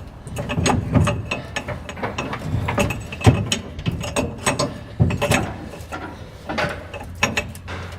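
Irregular metallic clicks and clunks from a Model A Ford transmission being worked into place, its gears and input shaft turned to bring the splines into line.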